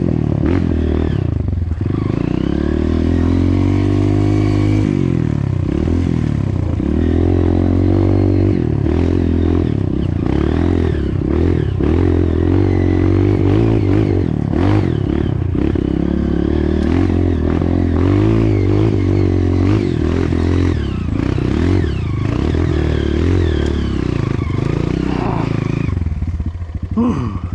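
Off-road motorcycle engine working hard, the throttle opened and closed again and again so the pitch keeps rising and falling, with clattering from the bike. Near the end it drops back to a lower, quicker beat.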